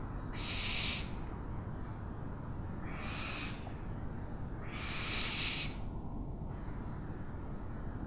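An owl giving three harsh, noisy screeches, each under a second long, the last the longest, over a steady low rumble.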